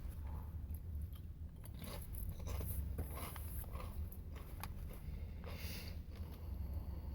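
Someone chewing and crunching potato chips, with scattered faint crunches over a steady low hum.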